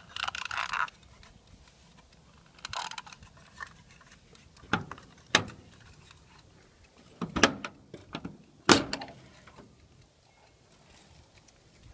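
Scattered clicks and knocks from the access door and latch of a military diesel generator's enclosure being handled, the two loudest about seven and a half and nearly nine seconds in, after a short rattle at the start. The generator is not running.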